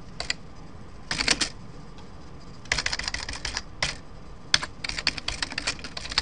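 Computer keyboard typing in uneven bursts of keystrokes with short pauses between, including a fast run of keys near the middle.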